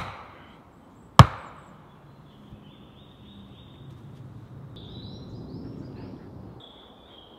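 Two sharp, heavy strikes of a long-handled tool into wood, about a second apart, one right at the start. Faint high chirping and soft rustling follow.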